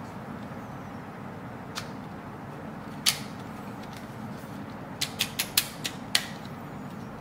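Sharp plastic clicks from the snap-on comb guide of an Enchen electric hair clipper being fitted and handled. There is one loud snap about three seconds in, then six quick clicks in a row between about five and six seconds, over a steady background hiss.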